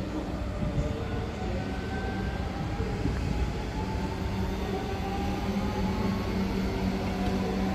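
Red regional electric multiple-unit train pulling away, its traction motors giving a slowly rising whine over a steady low running hum.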